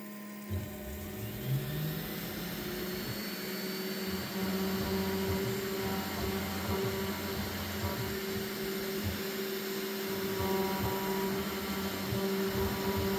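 TwoTrees TTC H40 CNC router's spindle running with a steady whine while a 1/8 inch two-flute downcut end mill cuts into plywood. Short low tones that keep changing pitch come from the stepper motors as the axes move.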